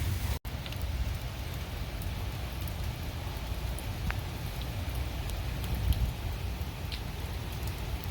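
Steady rain falling, with scattered separate drops ticking through it. The sound cuts out for an instant about half a second in.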